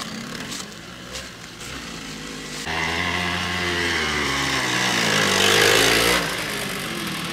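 Rokon Trailbreaker two-wheel-drive motorcycle's engine running as it rides over rough ground. It is low at first, then suddenly louder about two and a half seconds in as the bike comes up close, the engine's pitch rising and falling. It drops off abruptly about six seconds in.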